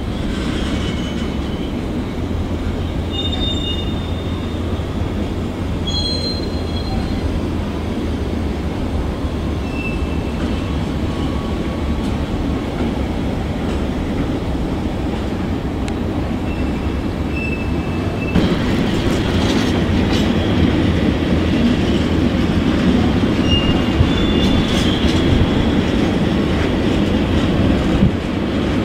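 Container freight wagons rolling slowly over yard track, with short high wheel squeals now and then. About two thirds in, the rolling grows louder and clicks of wheels over rail joints and points come in.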